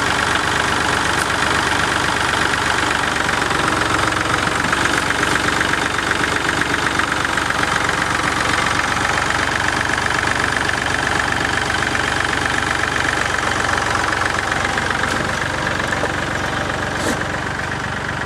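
Massey Ferguson diesel tractor engine running steadily under load as the tractor, a log chained to its rear tyre, works its way forward out of a deep mud hole. It grows a little fainter near the end as the tractor moves away.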